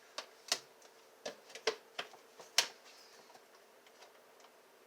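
A few light clicks and knocks of a blender jar and lid being handled, about six irregular taps over the first three seconds.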